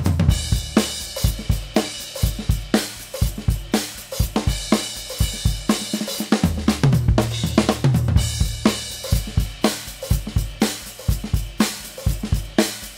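Acoustic drum kit played in a steady groove: kick drum, snare, hi-hat and Meinl cymbals, close-miked. About six to eight seconds in comes a run of lower, longer-ringing drum hits.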